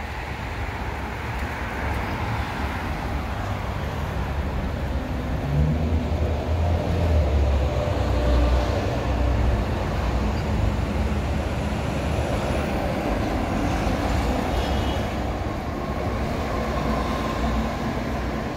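Low rumble of a large passing vehicle. It builds over the first few seconds and is loudest about six to nine seconds in.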